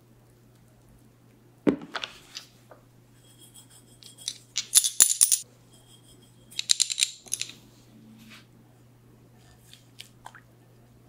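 Instant dry yeast being measured out of its paper packet and added to a ceramic bowl of liquid. A single knock comes about two seconds in, followed by two short bouts of crisp rustling and light clinking.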